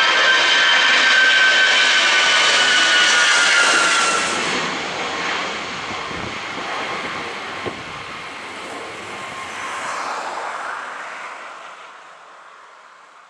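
Airbus airliner's twin jet engines passing low overhead at high thrust during a go-around in strong winds, their whine falling in pitch as it goes by. The noise then fades as the aircraft climbs away.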